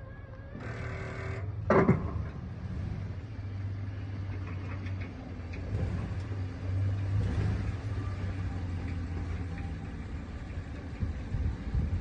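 Engine of a snow-plowing vehicle running under load, swelling louder for a couple of seconds partway through. Near the start there is a brief pitched sound, then a single loud knock just under two seconds in.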